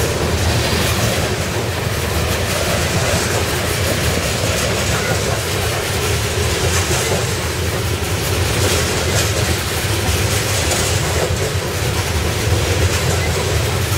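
CSX freight train rolling past, a steady loud rumble of wheels on rail.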